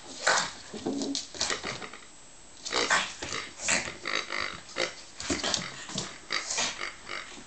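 A pug snuffling and grunting in short irregular bursts as it noses and shoves a rubber pig toy across a wooden floor, with a brief lull about two seconds in.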